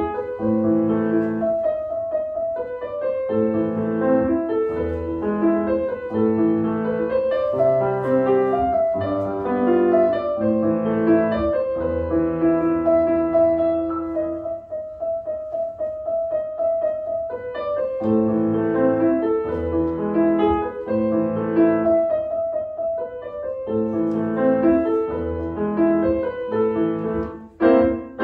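Grand piano played solo: a classical piece of flowing notes and chords. Near the end the playing breaks off briefly, then comes back with a few sharp, loud notes.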